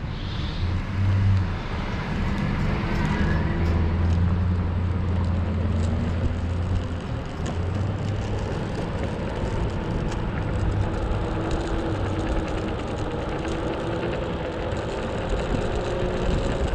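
Mototec 600W electric skateboard riding over rough asphalt: a steady rumble from its airless rubber tyres on the road, with a faint motor whine that drifts up and down in pitch as the speed changes.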